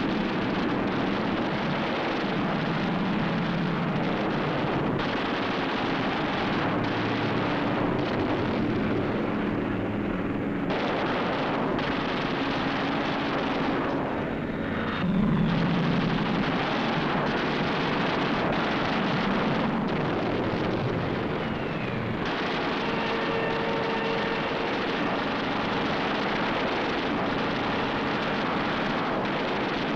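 Piston fighter plane's engine running steadily at high power, as laid onto an old 1940s film soundtrack. The sound changes abruptly a few times where the film is cut.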